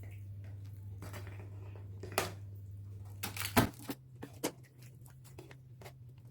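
Cooked meat being moved into a tray: scattered short knocks, clicks and rustles of handling, the loudest about two seconds and three and a half seconds in, over a steady low hum.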